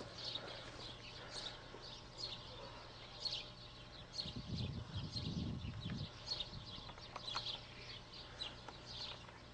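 Small birds chirping over and over, with a low, rough sound lasting about two seconds midway through.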